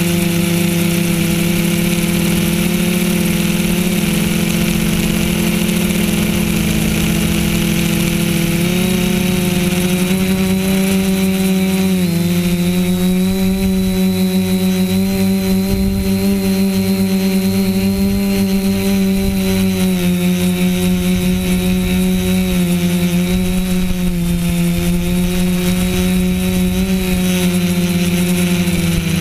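TBS Discovery quadcopter's brushless motors and propellers, heard from on board in flight: a loud, steady buzz with a thin high whine above it, its pitch stepping up and down a few times as the throttle changes.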